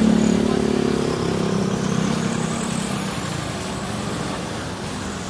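A road vehicle's engine running, loudest at the start and fading steadily as it moves away.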